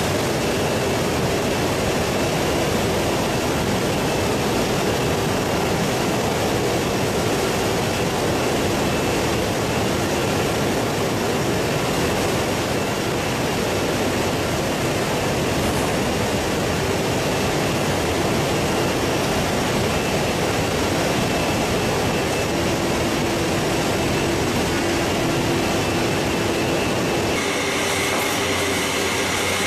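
Steady rushing of agitated water and machinery running in a poultry processing line's water tank as chicken carcasses churn through it. Near the end the sound shifts to a machine hum with a higher steady whine, with less rumble.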